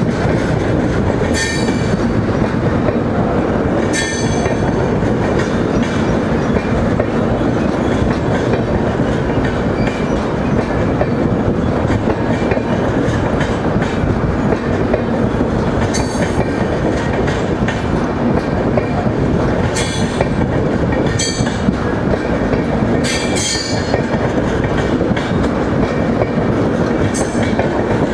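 Indian Railways superfast express train running past at speed close by: a steady, loud rumble of wheels on the track with clickety-clack, and now and then a short, sharp metallic tick from the wheels and rails.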